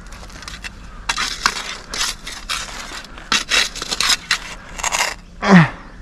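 Digging through dirt and dump debris: a string of irregular scraping and crunching strokes. Near the end, a person makes a short vocal sound that falls in pitch; it is the loudest sound here.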